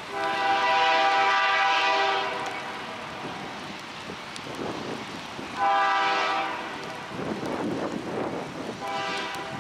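Diesel locomotive's air horn sounding for a grade crossing: a long blast of about two seconds, a shorter one of about a second midway, and another starting near the end, with the rumble of the approaching train between blasts.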